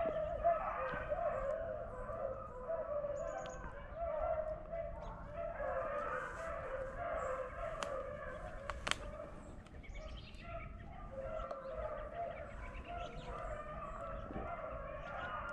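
A pack of beagles baying with many overlapping voices, the chorus of hounds running a rabbit's scent trail. There is one sharp click about nine seconds in.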